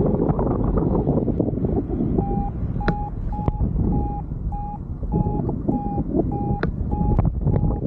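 Paraglider's variometer beeping about twice a second in a short, steady mid-pitched tone, starting about two seconds in. This is its climb signal, meaning the glider is rising. Wind buffets the microphone throughout, with a few sharp ticks among the beeps.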